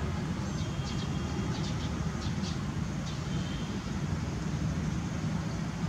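Steady low outdoor rumble, with a few short, faint high chirps in the first half.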